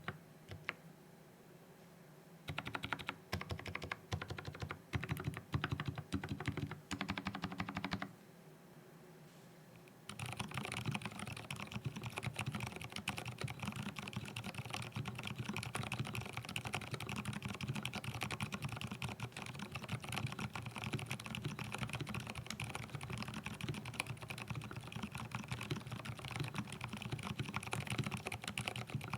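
Typing on an mStone Groove T mechanical keyboard with an aluminium plate and lubed Gateron Silent Brown switches. Short runs of keystrokes come first, then after a brief pause steady, fast typing from about ten seconds in.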